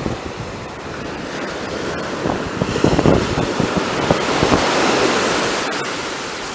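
Sea surf breaking on a sandy beach: a wave builds and washes up the shore about halfway through, then eases off, with wind buffeting the microphone.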